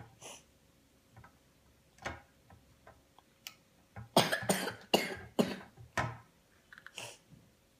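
A child with a cold coughing about five times in quick succession, starting about four seconds in, after a few faint clicks.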